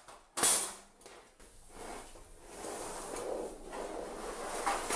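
Perforated sheet-metal front grille of an electric heater being pulled off its housing: a sharp clack about half a second in as it comes free, then a few seconds of scraping and rubbing as it is handled and slid aside.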